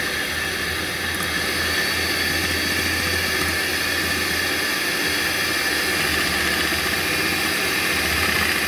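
Electric hand mixer running with a steady whine, its beaters whipping egg whites in a glass bowl into foam for a stiff-peaked batter.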